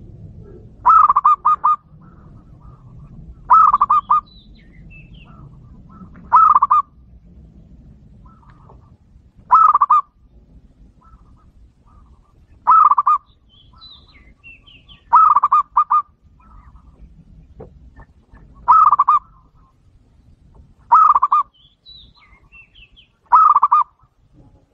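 Zebra dove (perkutut) cooing: short bursts of a few quick staccato coos, repeated nine times about every two to three seconds.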